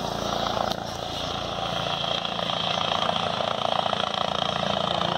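Helicopter in flight, its rotors giving a steady, rapid chop that grows a little louder about two seconds in.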